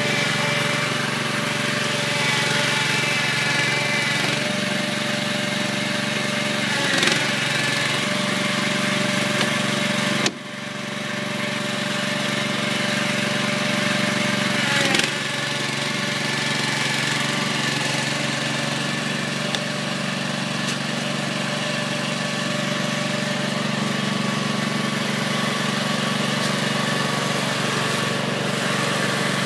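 Small gasoline engine on a walk-behind shed-moving machine running steadily, with a brief knock twice.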